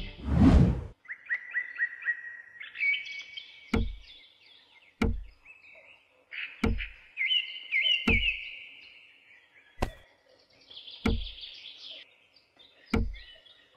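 Miniature clay bricks knocked down into place seven times, sharp clicks with a low thud, about one to two seconds apart, over steady birds chirping. A short whoosh opens it.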